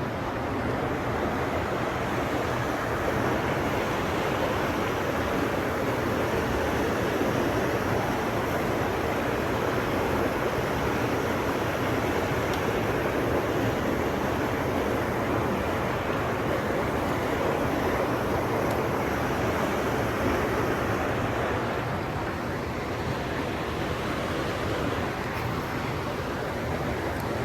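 Steady rush of running water from a mountain stream, an even unbroken noise.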